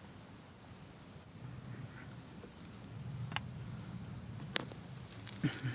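An insect chirping faintly and evenly in the background, a short high chirp about once a second, over a low steady rumble. A few sharp clicks, the loudest about three-quarters of the way through.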